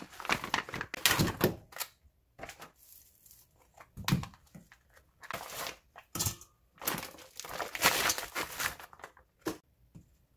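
Plastic food packaging crinkling and rustling in bursts as a pack of frozen baby octopus is opened and handled, with a single thunk about four seconds in.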